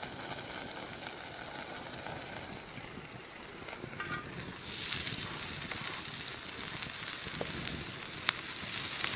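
Wood fire crackling low, then a cheeseburger patty sizzling on a hot stone slab over the fire. The sizzle turns louder and hissier about halfway through, with one sharp pop near the end.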